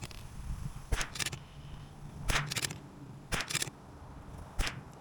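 Rifle shots at a shooting range, about one a second, most followed a moment later by a second crack or echo.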